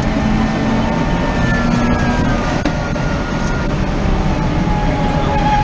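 Onboard sound of the Forze hydrogen-electric race car at speed: a high electric-drivetrain whine that glides down in pitch as the car comes off the power and slows, over steady wind and tyre rumble.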